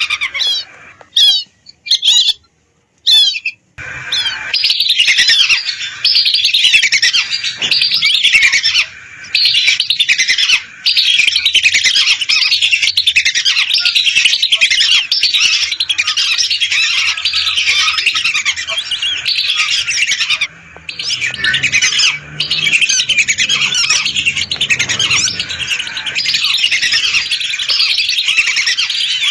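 A large flock of lesser whistling ducks calling. In the first few seconds a few separate whistles sound, then many birds join in a dense chorus of high, rapid, overlapping whistles that breaks off briefly a few times.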